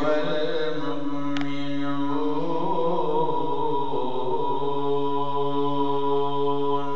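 A man's unaccompanied Quranic recitation (tajwid), a drawn-out melismatic phrase on one voice. The pitch winds through ornaments in the first half, then settles on a long steady note that stops at the end.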